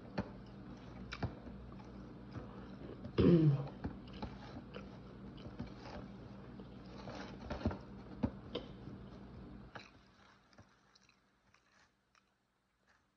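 Close-up eating sounds: a person biting and chewing food, with scattered sharp clicks and crunches. The sounds fade out after about ten seconds.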